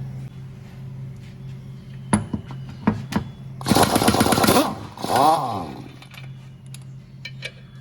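Air impact wrench rattling for about a second, undoing the clutch pressure plate bolts, then a shorter burst that sweeps in pitch about a second later. A few sharp metal clicks come before it, over a steady low hum.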